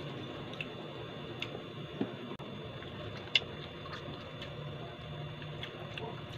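Eating sounds: small mouth and utensil clicks and smacks at irregular intervals, with one sharper click about three seconds in, over a steady low background hum.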